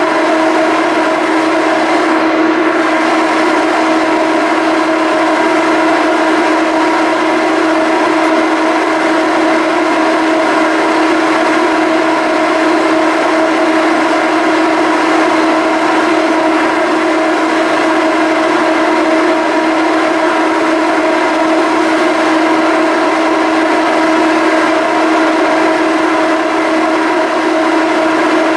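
Steady machinery drone from a BC Ferries Salish-class ferry: one strong unwavering tone with several fainter higher tones above it, holding constant throughout.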